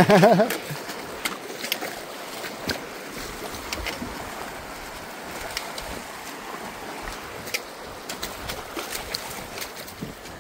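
Feet splashing through an ankle-deep, flowing mountain creek, with many scattered sharp splashes over the steady rush of the water. A short, wavering vocal cry opens it.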